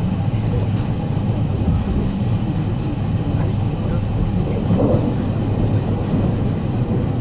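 Steady running noise inside an E751 series electric express train at speed: a low, even rumble of wheels on rails.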